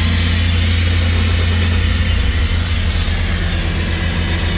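Heavy engine running steadily at a constant speed, a deep, even drone.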